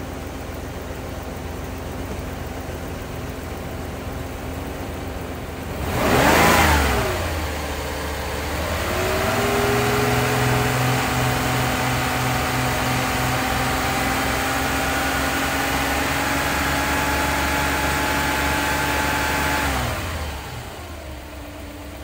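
Mercedes-Benz W126's engine idling, then revved once about six seconds in and held at a raised, steady speed for about ten seconds before dropping back to idle near the end. The engine is being revved to build pressure in the rear self-levelling suspension after new accumulators were fitted.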